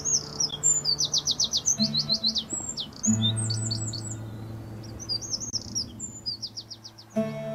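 Dawn chorus of songbirds: quick runs of high, repeated chirps and trills from several birds, over a low steady hum.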